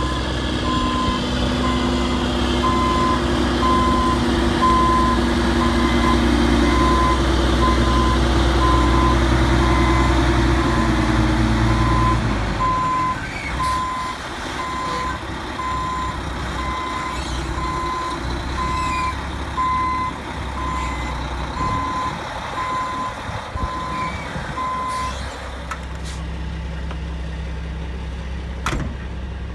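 Heavy equipment backup alarm beeping steadily, about one beep every three-quarters of a second, over a running engine. The engine's hum drops away about halfway through, the beeping stops a few seconds before the end, and a single sharp knock follows near the end.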